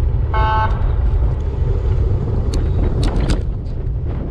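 Wind buffeting a bicycle-mounted camera's microphone as the bike rides along a road, a steady low rumble. A short horn toot sounds about half a second in, and a few sharp clicks come around three seconds in.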